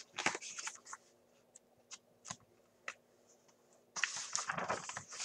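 Pages of a picture book being handled and turned: a few soft clicks and paper rustles, then a longer rustle of the page about four seconds in.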